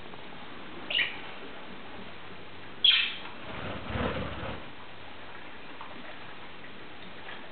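Budgerigars calling: a short falling chirp about a second in, then a louder, sharp chirp about three seconds in, followed by a softer, noisier stretch lasting about a second and a half.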